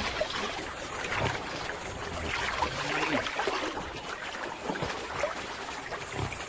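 Water sloshing and splashing around a crocodile as it moves through shallow water to cool off.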